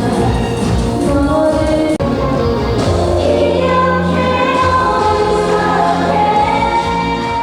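Music with a choir singing, the voices holding long sustained notes in the second half. The sound drops out for an instant about two seconds in.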